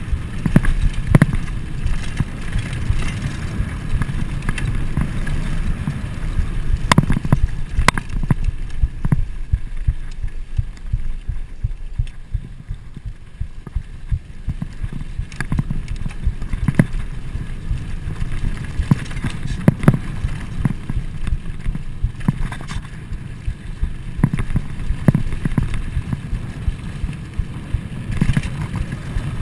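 A Trek Fuel EX full-suspension mountain bike rolling fast over a dirt trail: a steady low rumble from the tyres and the rushing air, with scattered sharp clicks and knocks as the bike rattles over bumps.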